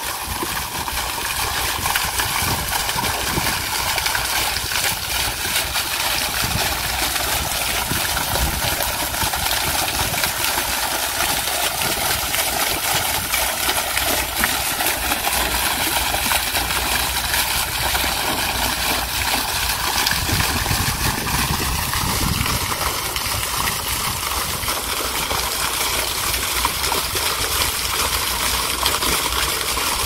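Garden fountain with a single vertical water jet splashing steadily down onto rocks in a shallow pool, a constant rush of falling water. Low wind rumble on the microphone comes and goes underneath.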